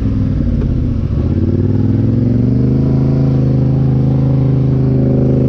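Polaris Sportsman 850 HighLifter ATV engine running through a Big Gun Evo U exhaust. It eases off briefly about a second in, then picks up speed with a rising pitch and holds steady.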